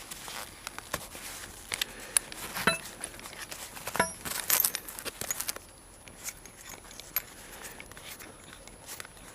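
Scattered small clicks, clinks and rustling from tools being handled; no drill is running.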